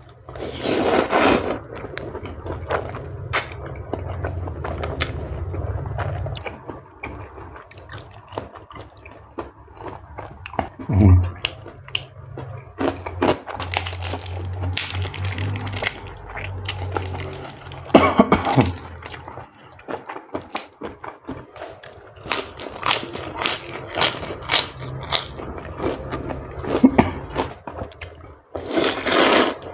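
Close-up eating sounds: chewing with wet smacks and clicks, and several longer slurps of noodles in broth, about a second in, near the middle and near the end.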